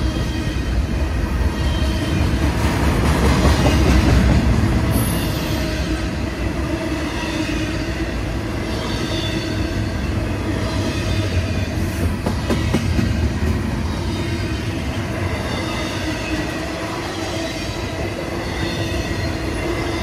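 Double-stack intermodal well cars of a freight train rolling past close by: a steady heavy rumble of steel wheels on rail, with faint high tones over it. The rumble swells briefly about three to four seconds in.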